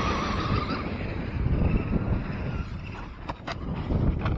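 Wind buffeting the microphone, with the faint whine of an electric RC monster truck's motor in the first second or so. A few sharp clicks come in the last second and a half.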